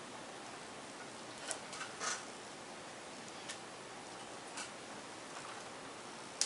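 A few faint, sparse ticks and a short scrape as a thin metal pick works at the tape over the video cable connector of a laptop LCD panel, over a steady background hiss.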